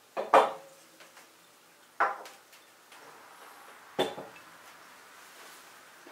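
Glass coffee ware set down on a wooden tabletop: a sharp double knock, then two single knocks about two seconds apart, each ringing briefly.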